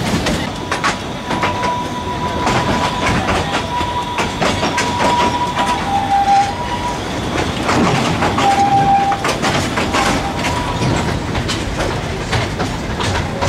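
Narrow-gauge forest railway train running, its wheels clicking and clattering over the track, with a thin high tone that comes and goes several times.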